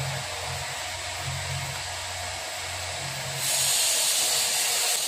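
Metal lathe running steadily with a hissing machine noise and a low hum that comes and goes. About three and a half seconds in, the sound grows louder and hissier and holds.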